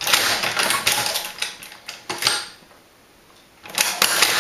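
Tippmann Boss hand-operated leather stitcher clattering as it sinks the first stitches into a leather holster: rapid mechanical clicks, a quiet lull a little after two seconds in, then a second run of clicks near the end.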